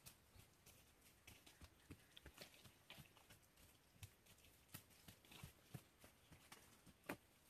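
Faint, irregular footsteps and rustling on leaf-littered forest ground, with scattered small taps and clicks; one sharper tap comes near the end.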